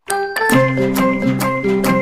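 Background music that starts suddenly, with held notes under a steady beat.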